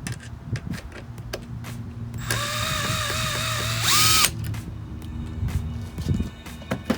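A power tool's motor runs for about two seconds while undoing a fastener, its whine wavering under load, then climbing sharply in pitch as it spins free just before it stops. Clicks and clanks of hand tools come before and after.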